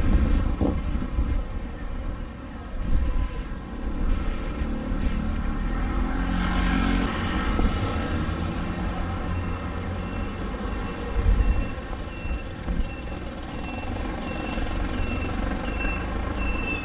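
Steady low rumble of street traffic. From about nine seconds in, a short, high electronic beep repeats roughly every two-thirds of a second.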